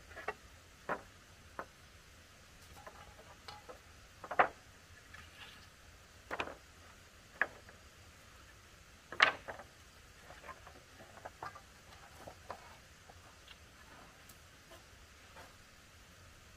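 Irregular sharp knocks and taps of wood being handled or worked, a dozen or so, the loudest about four and nine seconds in.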